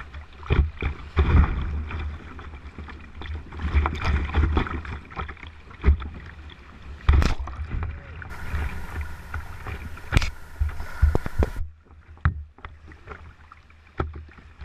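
Fast river water rushing and splashing around a kayak, with irregular sharp slaps of paddle strokes and waves breaking over the bow, over a steady low rumble. About twelve seconds in it turns quieter as the water calms.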